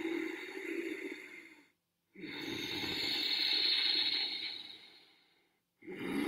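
A man doing Ujjayi breathing: slow breaths drawn through a narrowed throat, each a soft hiss like a distant ocean. One breath fades out before two seconds in. A second rises and then fades over about three seconds, and a third begins near the end.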